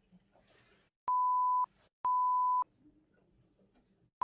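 Censor bleeps: a flat, steady single-pitch beep tone sounding twice for about half a second each, about a second apart, with a third starting right at the end, laid over a caller's spoken home address to hide it.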